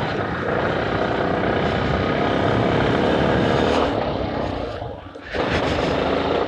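Yamaha Ténéré 250's single-cylinder engine running as the bike rides along a wet dirt road, mixed with wind noise over the microphone. The sound dips briefly about five seconds in, then picks up again.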